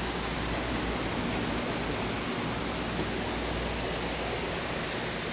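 Steady, even hiss of background noise with no distinct sounds, apart from a faint tick about three seconds in.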